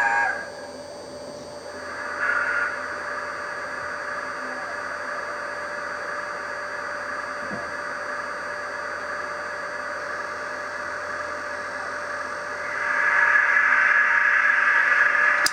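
A 00 gauge model A4 locomotive's electric motor whirring steadily as it runs along the track, getting louder near the end. There is a sharp click at the very start.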